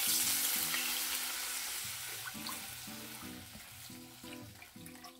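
Concord grape juice and red wine vinegar poured into a hot skillet, sizzling hard as it hits the pan, deglazing the browned bits left from searing the roast. The sizzle is loudest at the start and slowly dies down.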